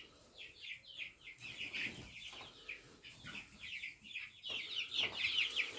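Chickens calling: a busy run of short, high peeps, each falling in pitch, several a second, growing louder near the end.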